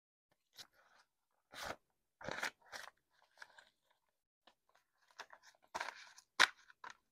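Paper dollar bills rustling and crinkling as a stack of cash is thumbed through and handled, in a string of irregular short bursts, the loudest a sharp crinkle near the end.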